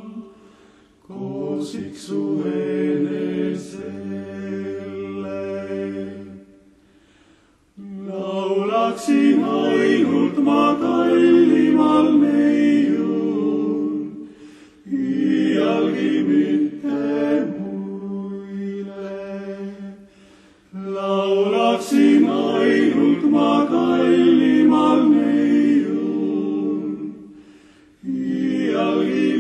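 Male vocal quintet singing unaccompanied in close harmony, in Estonian, in several long phrases broken by short pauses.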